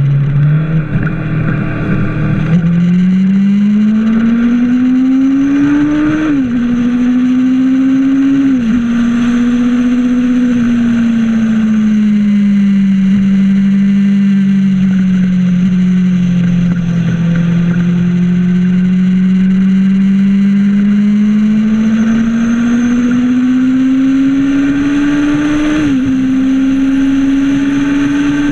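Onboard sound of a racing sidecar outfit's engine running hard. The pitch climbs with sharp drops at upshifts about six, eight and a half and twenty-six seconds in. In the middle it eases off, the pitch sinking slowly for several seconds before it climbs again. A steady rush of wind lies over it.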